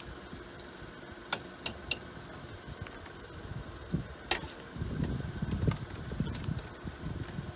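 Metal cooking utensils clinking against pots and bowls as ramen is served up: three sharp clinks in quick succession early on and another about four seconds in. From about five seconds a louder, uneven low rumble sets in under them.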